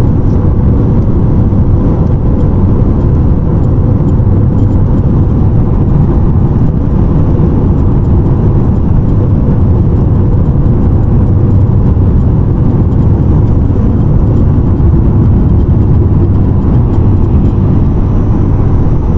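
Steady road and driving noise inside a 2020 Honda CR-V's cabin at 60–70 mph, a loud low rumble with faint, scattered ticks. The owner reports a creaking and rattling at this speed, which he takes for a defect.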